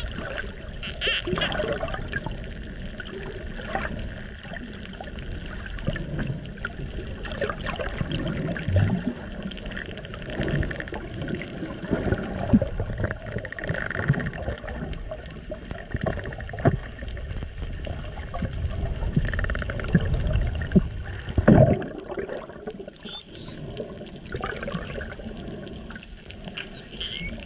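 Underwater water noise: rushing and bubbling with scattered knocks, quieter about 22 seconds in. In the last few seconds, spinner dolphins whistle several times: high calls that dip in pitch and sweep back up.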